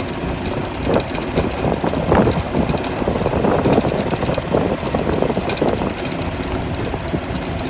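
Golf cart driving on a dirt road: its running gear and tyres rumbling over the rough surface with frequent small knocks and rattles, and wind on the microphone.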